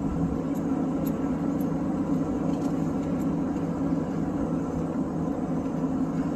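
Steady driving noise of a car heard from inside the cabin: engine and tyres on a wet road, with a few faint ticks.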